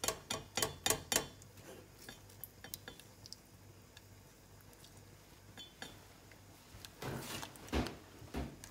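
A metal utensil clinking against a pan of celery sauce on the heat: a quick run of sharp clinks, about three a second, at the start, then scattered faint taps and a few louder pan noises near the end.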